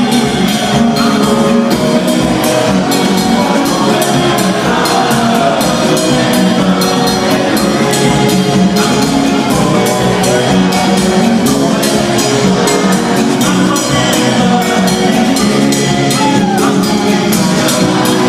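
Live gospel band and choir performing an upbeat song: a steady drum-kit beat with keyboard and guitar under the choir's singing, with a crowd joining in.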